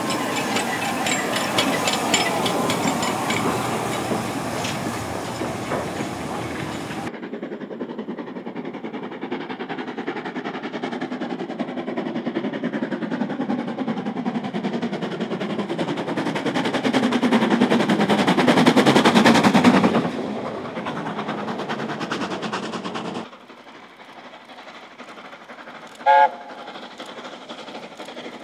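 Steam locomotives working hard with trains, exhaust beats chuffing in quick succession: first a Midland 4F 0-6-0, then an LMS Black 5 4-6-0 whose exhaust grows louder as it approaches, loudest just before it passes about 19 s in. After a cut, LNER A4 Pacific No. 4492 is heard, and its whistle gives one short blast about 26 s in.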